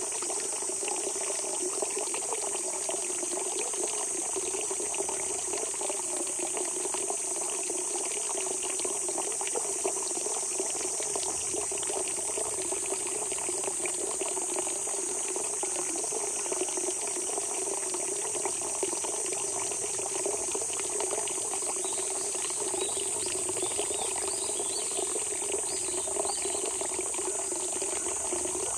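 Spring water gushing steadily out of the ground, a constant rushing babble, with a steady high-pitched insect drone over it. A few faint chirps come in late on.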